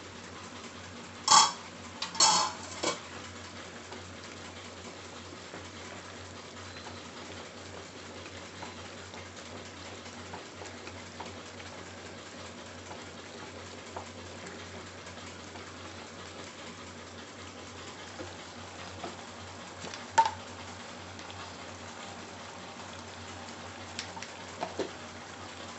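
Cookware clinking: three sharp ringing clinks in the first three seconds as a glass bowl is handled over a steel pan. Then a spatula stirs a thick okra and tomato curry in the pan, with light knocks and one sharper clink against the pan about twenty seconds in.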